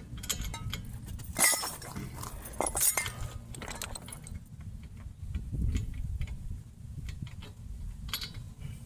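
Metal hand tools and parts clinking and clattering while a wheel hub is being worked on, with a few louder knocks about one and a half and three seconds in, over a low steady rumble.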